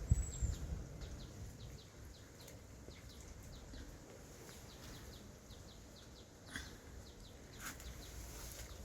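A small bird chirping over and over, short high falling chirps about two or three a second. A low rumble in the first second or two, and two sharp clicks near the end.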